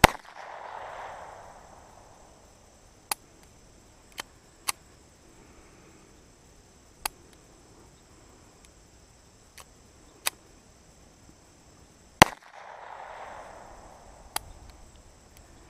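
Walther P22 .22 LR pistol fired twice, about twelve seconds apart, each shot followed by about a second of echo. Fainter sharp cracks or clicks come between the shots, over a steady high insect buzz.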